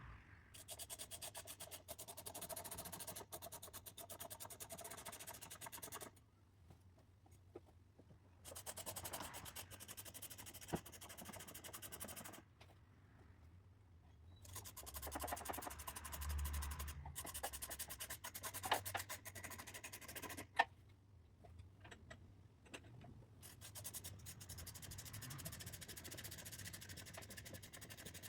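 Socket ratchet clicking rapidly in four long runs with short pauses between, as the nuts holding the rear wing on are run down on a 10 mm socket with a long extension.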